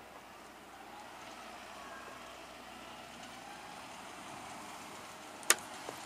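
Distant Case IH CVX175 tractor running, a faint steady engine noise across the field. A single sharp click comes about five and a half seconds in.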